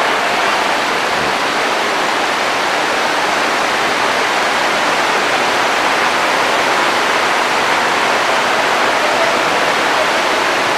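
Steady, even hiss of background noise that holds at one level without pauses or changes.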